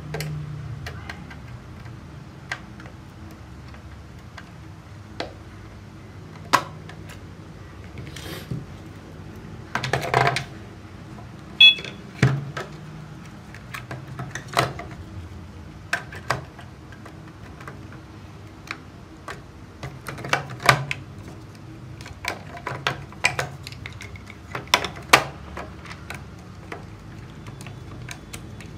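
Scattered plastic clicks, taps and knocks of hands handling a toy RC off-road truck's battery compartment: opening the cover and fitting the battery pack. A low steady hum sits underneath.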